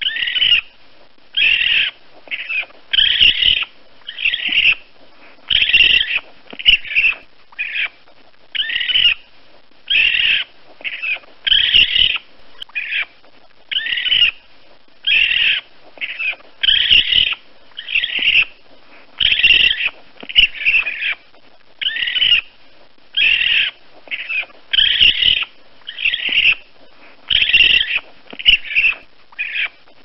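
Baby raccoon (kit) calling over and over: short high-pitched calls repeating about once a second.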